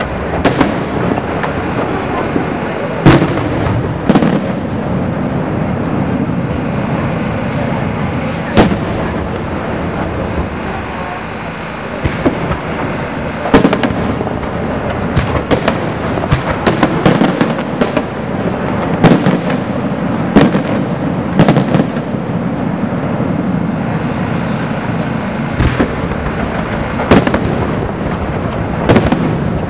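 Aerial fireworks display: continuous crackling of bursting shells, punctuated by frequent sharp, loud bangs that come thickest through the middle stretch.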